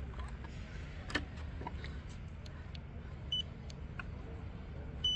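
Low wind rumble and phone-handling noise with scattered clicks and knocks. A short high electronic beep about three seconds in, and a much louder high beep right at the end.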